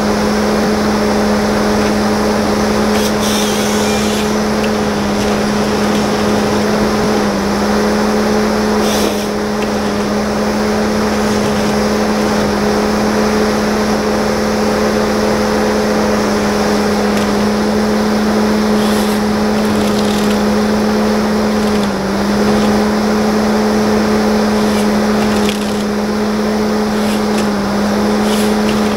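Forestry machine's diesel engine running steadily at high revs, its pitch dipping briefly a few times, with occasional short clicks or cracks over it.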